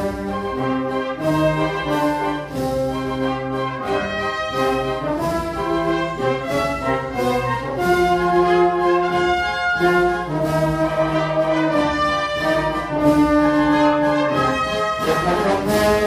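Spanish wind band playing a slow Holy Week processional march: brass leads with held chords that change every second or two, over regular drum beats.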